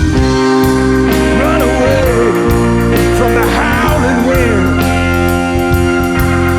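Blues-rock band playing an instrumental passage: drums and sustained chords under a lead line of bending notes.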